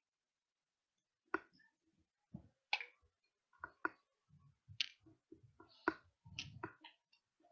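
Eating a white-chocolate stick with popping candy close to a headset microphone: a dozen or so sharp little clicks and crackles at irregular intervals, with soft chewing sounds under some of them.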